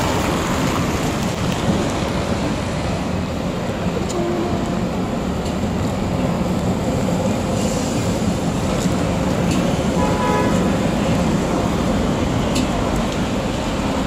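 Vintage tram ACEGAT 447 moving up close on wet rails, over steady street traffic on rain-soaked pavement. A brief horn-like tone sounds about ten seconds in.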